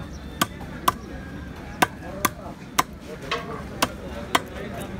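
Sharp chopping knocks, about seven at uneven spacing, as a large tilapia is cut and struck on a bonti, the upright curved blade fixed to a board.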